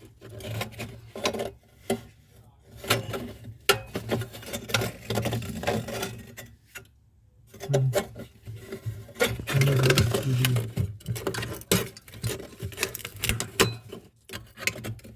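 Irregular clicking and knocking from hand work on metal parts, over a low steady hum.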